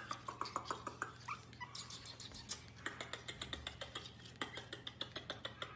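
Pomeranian puppy giving short high squeaks and whimpers over rapid clicking, several ticks a second.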